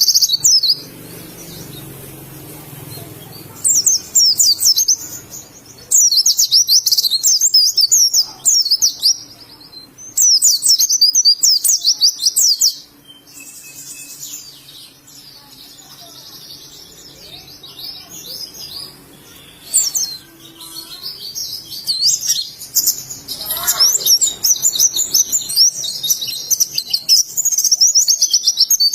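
White-eye (pleci) singing in rapid, high-pitched twittering phrases, each one to three seconds long. Short pauses separate the phrases, and near the end they run almost without a break.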